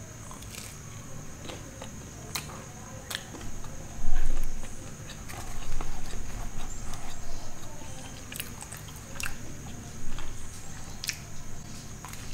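Close-up mouth sounds of a person biting into and chewing a slice of cheesy pizza, with sharp clicks and crunches here and there and a louder stretch of chewing in the middle.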